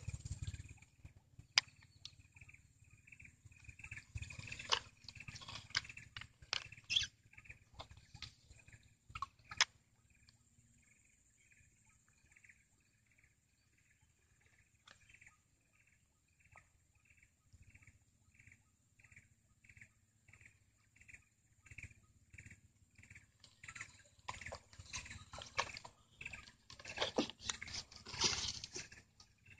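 An animal's short high chirp repeating steadily, nearly twice a second, over a faint steady high-pitched hum. Scattered clicks and knocks of fishing tackle and boat handling come in the first ten seconds and again near the end.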